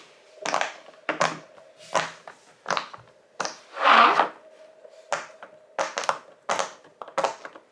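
Silicone pop-it fidget toy being pressed bubble by bubble: a run of short, sharp pops, a little under two a second, with one louder pop about four seconds in.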